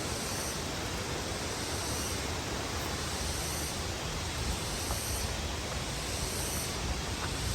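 Steady rushing of a waterfall, a constant even roar of falling water.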